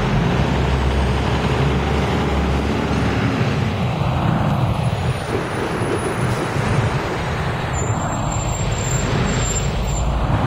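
A diesel tour coach's engine running as it pulls away through an intersection, over steady city traffic noise. A thin high whistle comes in about eight seconds in, as another large vehicle passes close by.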